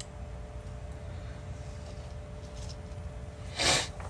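Faint small scrapes of steel tweezers on the iron's metal contact and plastic shell, then near the end one short, sharp breath out through the nose. Under it a low, steady room hum.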